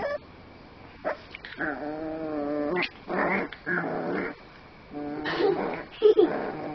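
Miniature Pinscher puppy snarling and whining in protest at having its harness taken off. A long drawn whine comes about two seconds in, then several short snarling growls.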